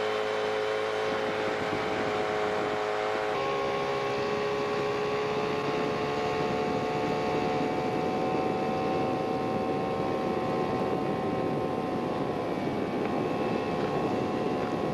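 Small boat's gasoline outboard motor running steadily under way, its pitch shifting slightly about three seconds in.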